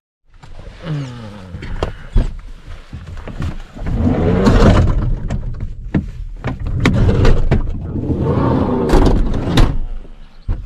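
A minivan's door being worked open: sharp clicks and knocks from the latch and handle, with louder stretches of rumbling and rustling as the door and the people inside move.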